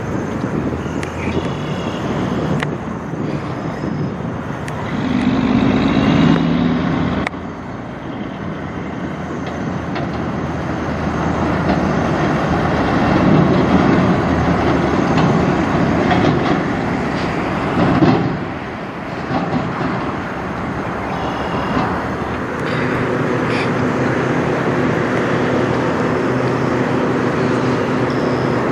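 Diesel engines of semi tractor-trailers running as they drive past, first a Peterbilt long-hood conventional and then a Freightliner Century Class. The sound breaks off suddenly about seven seconds in. Near the end there is a steady engine drone as the Freightliner comes toward the microphone.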